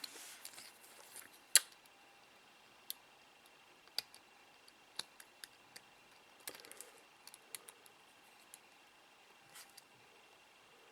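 Scattered faint clicks and ticks of small hand tools and tiny parts being handled during fine wire work on a micro drone, the sharpest about a second and a half in. A faint steady high tone sits behind them.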